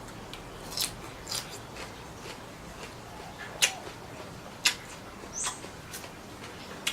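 Eating sounds: a handful of short, wet clicks and smacks, irregularly spaced about a second apart, one with a brief high squeak.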